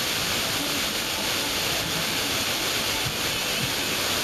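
Steady FM radio static hiss from an SDR receiver tuned to 96.4 MHz, where a distant station is picked up only weakly by meteor scatter, so its audio is mostly buried in the noise.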